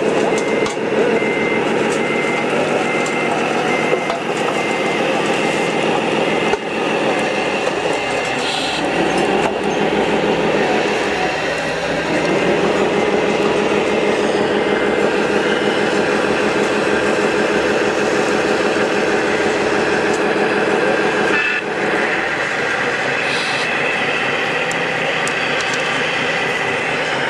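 Radio-controlled construction machines running, with a steady mechanical whir and rumble from their motors and gears. The sound is briefly interrupted a few times.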